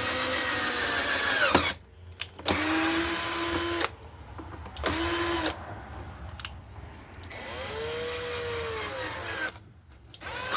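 Power drill driving screws into wood in short runs of motor whine, each run rising in pitch and cutting off. There are four runs, the last one softer with its pitch rising and falling, and another starts at the very end.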